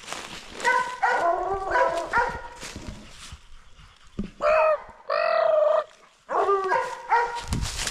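Coonhounds barking at a treed raccoon: drawn-out, falling barks in three bunches, some overlapping.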